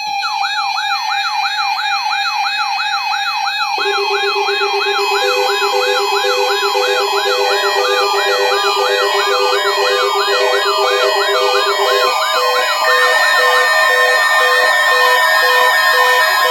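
Several weather radio receivers' alarms going off together, set off by the NOAA Weather Radio tone alert test. A fast warbling siren starts suddenly, sweeping up and down about three times a second. Steady and pulsing electronic beeps join it about four, five and thirteen seconds in.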